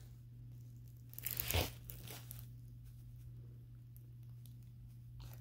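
A brief crinkling rustle a little over a second in, from a diamond painting canvas being handled, over a faint steady low hum.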